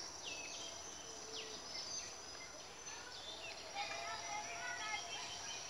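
Tropical forest ambience: birds calling, with several quick falling whistled notes early on and scattered chirps later, over a steady high-pitched insect drone.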